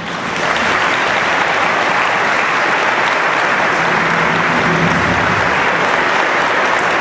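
Large audience applauding steadily in a big sports hall, with a low steady tone coming in about halfway through.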